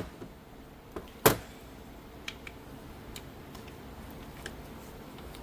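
A few sharp knocks of loose manual transmission parts being handled and set down: one at the start, a small one about a second in and a louder one just after, then a few faint ticks.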